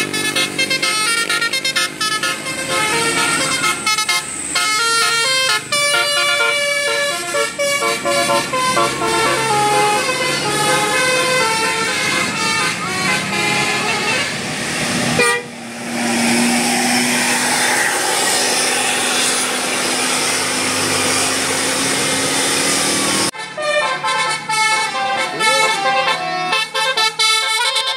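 Bus 'telolet basuri' multi-tone horns playing tunes in quick stepped notes. Near the middle the notes give way for several seconds to a hissing wash with one steady low tone, then the horn tunes start again.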